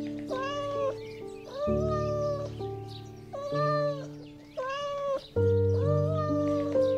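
Domestic cat meowing five times, each meow under a second long and rising then falling slightly in pitch, over piano music.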